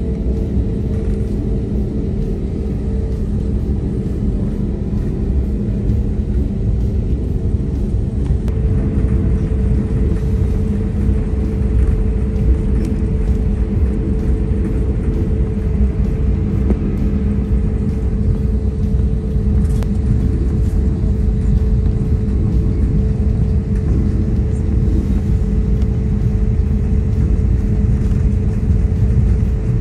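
Jet airliner cabin noise while taxiing: a steady low rumble with a constant engine hum, which grows a little stronger about eight seconds in.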